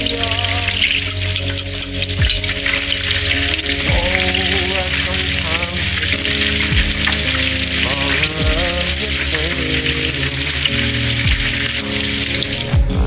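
Battered anglerfish pieces deep-frying in a fryer of hot oil: a steady, dense crackling sizzle.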